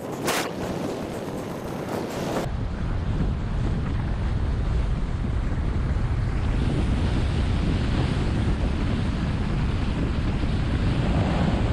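Wind rushing over an action camera's microphone on a fast downhill ski run, with the hiss of skis on groomed snow underneath. The sound changes abruptly about two and a half seconds in, then stays a steady, louder rush as the skier reaches about 40 mph.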